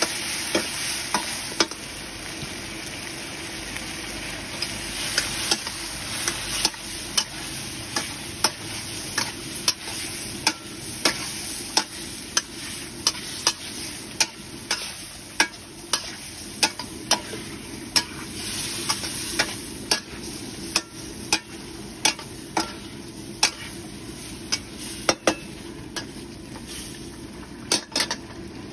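Squid stir-frying and sizzling in a wok of spicy sauce. A metal spatula stirs and scrapes it, clacking against the wok about once or twice a second.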